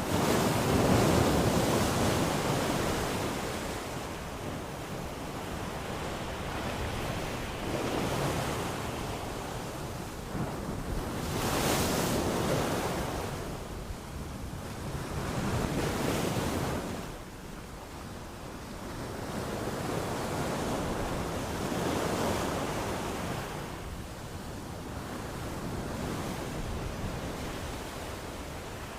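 Ocean waves washing in and drawing back, the surf rising and falling in swells every four to five seconds, the loudest near the start.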